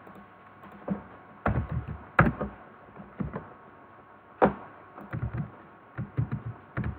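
Irregular clicks and taps of a computer mouse and keyboard being operated, a dozen or more in uneven clusters, some with a dull knock.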